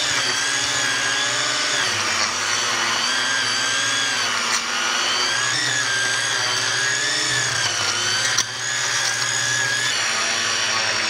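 Powered lawn edger's spinning blade running steadily: a whine of several tones over a hiss, its pitch wavering slightly. There is one sharp tick about eight seconds in.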